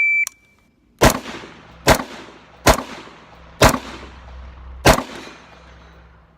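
A shot timer's short high start beep, then five AR-15 rifle shots at an even pace, roughly one a second, each trailing off in echo.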